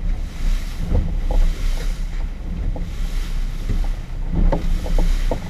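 Motorboat running across open sea: steady low engine and hull rumble, with wind buffeting the microphone and water rushing along the hull. A few short knocks sound about a second in and again near the end.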